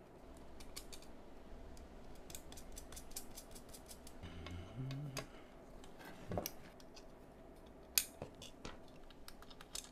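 Faint small clicks and taps of MOSFET legs and tabs being pushed into a circuit board and handled by fingers, with a few sharper single clicks in the second half. A brief low hum of a voice midway.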